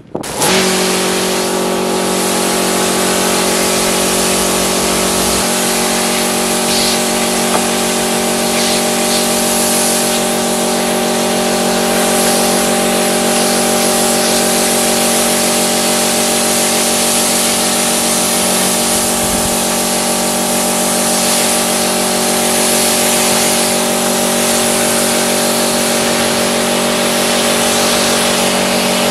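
Pressure washer running steadily: its motor and pump hum under the hiss of the high-pressure water jet striking a mud-caked car. It starts just after the beginning.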